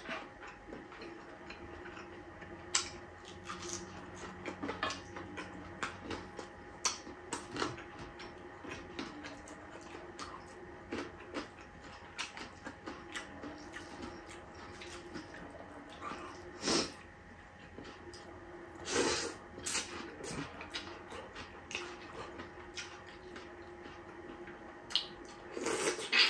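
Close-up eating sounds from food eaten by hand: wet chewing and lip smacks with many small clicks, a few louder smacks near the middle and just before the end, over a faint steady hum.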